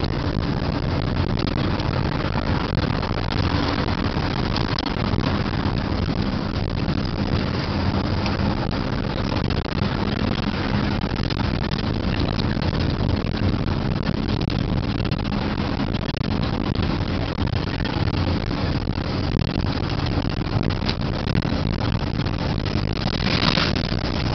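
A car's engine hum and road noise, heard from inside the moving vehicle as it climbs a winding road, steady throughout. Near the end comes a brief whoosh.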